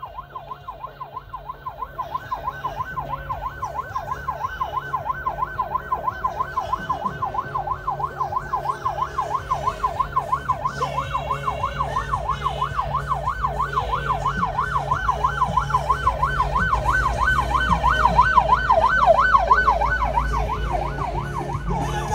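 Escort vehicle's siren in a fast yelp, rising and falling about three times a second and growing louder as the motorcade approaches. A low engine rumble builds as the vehicles draw near at the end.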